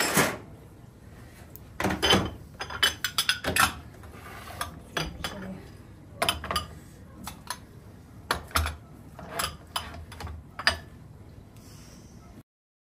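Small ceramic serving plates set down onto a tray and against one another: an uneven string of sharp clinks and knocks that stops abruptly near the end.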